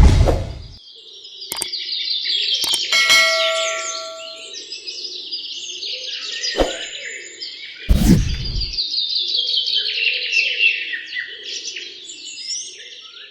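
Many small birds chirping and twittering without a break. A short ringing chime sounds about three seconds in, and a low thud comes about eight seconds in.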